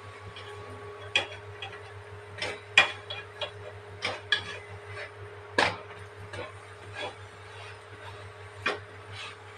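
A wooden slotted spatula tapping and scraping against a flat frying pan as a paratha is pressed and turned, giving about eight irregular knocks, the loudest about three seconds and five and a half seconds in. A steady low hum runs underneath.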